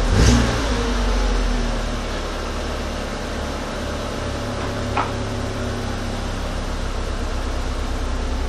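Volkswagen Passat 1.8T turbocharged four-cylinder engine falling back from a rev and then idling steadily. There is a single short click about five seconds in.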